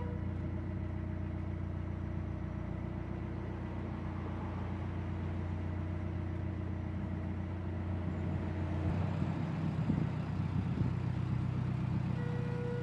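Narrowboat's diesel engine running steadily at cruising pace, a low hum. About nine seconds in, its note shifts and rumbles more unevenly.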